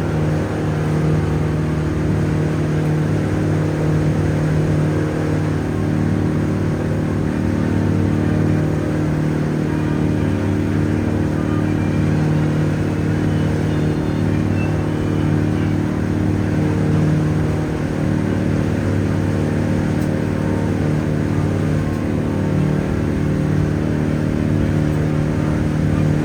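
River ferry boat's engine running steadily at cruising speed, a constant low hum with water and hull noise over it.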